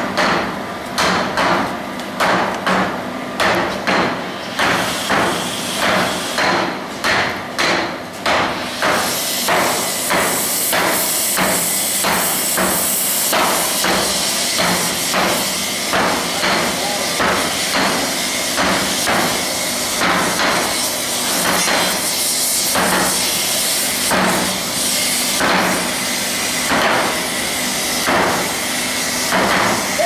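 Team of smiths hammering a hot metal plate in turn, hand-flanging (Kümpeln) a locomotive firebox tube sheet. The blows come in a steady rhythm of about two a second, then about one a second. From about nine seconds in, a steady hiss runs beneath them.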